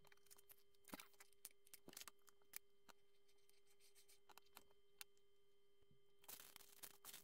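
Plastic Lego bricks clicking and tapping as small pieces are picked up and pressed onto a partly built model, with a denser run of rubbing and handling noise near the end as the assembly is lifted and turned. A faint steady hum runs underneath.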